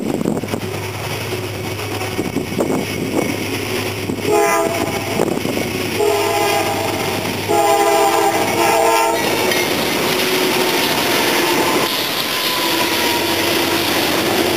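CSX freight train's diesel locomotives passing and sounding the horn in several blasts between about four and nine seconds in, the last two long, over the low drone of the engines. After that the freight cars roll by with a steady rumble and clatter.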